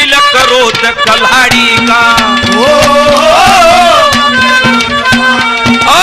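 Haryanvi ragni folk accompaniment: harmonium holding steady notes over fast, dense hand-drum strokes, with a wavering melody line rising and falling in the middle.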